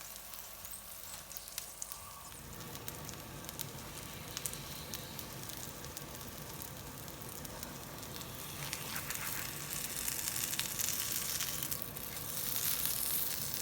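Aloo paratha frying in ghee on a pan over medium heat, sizzling steadily with small crackles; the sizzle grows louder about eight seconds in.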